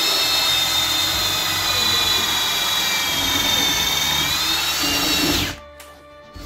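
Cordless drill turning a hole saw through a trailer wall to bore the heater's vent hole, the motor whining steadily under load. The whine rises slightly in pitch and then stops near the end.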